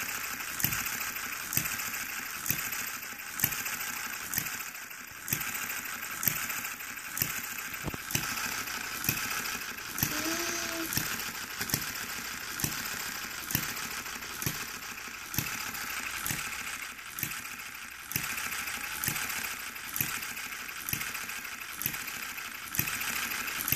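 One-third-scale model of a New Holland hit-and-miss gas engine running, firing with a sharp crack about once a second over a steady mechanical clatter.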